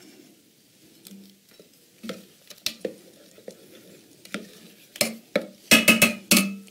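A spoon stirring thick oatmeal in a stainless steel pot, with soft scraping and scattered clinks against the pot. A run of sharper knocks against the pot comes near the end.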